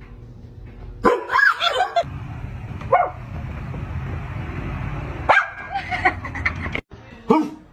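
Dog barking and yipping in short bursts, several clustered about a second in and again in the second half, over a steady hiss.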